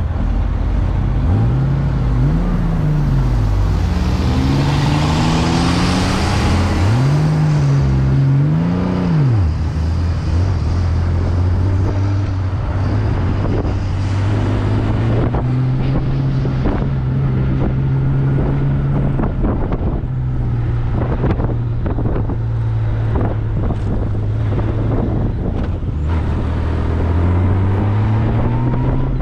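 Honda Gold Wing motorcycle engine running on the road, its pitch swinging up and down twice in the first ten seconds as it revs and shifts, then holding steady. Wind rushes over the microphone, strongest about four to seven seconds in.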